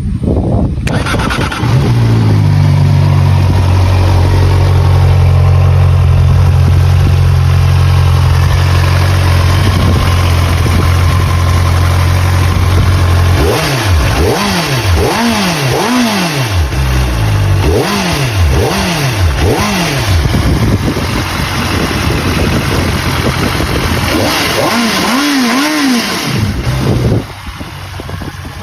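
Voge RR500S four-cylinder motorcycle engine starting about a second in, then idling steadily. About halfway through it is given a run of quick throttle blips that rise and fall, before it settles back down near the end.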